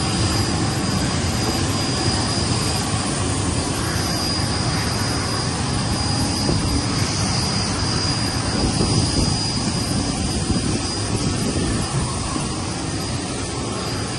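Jet turbine noise on an airport ramp: a loud, steady rush with a constant high-pitched whine running through it.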